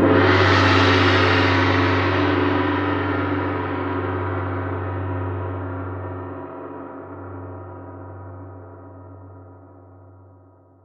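A large gong struck once as the climax of a drum-roll buildup, ringing on with a deep hum and a shimmer of higher tones that slowly fade away.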